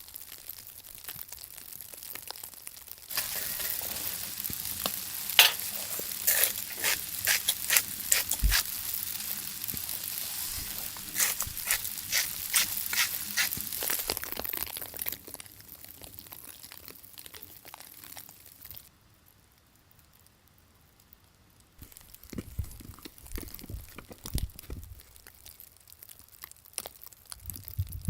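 Food sizzling as it fries in a pan, a steady hiss full of sharp crackles. It dies away about two-thirds of the way through, and a few dull knocks follow near the end.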